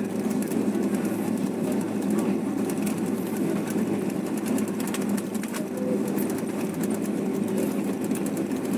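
Jet airliner cabin noise while taxiing: the engines' steady hum and drone heard from a window seat over the wing, with scattered faint clicks and rattles.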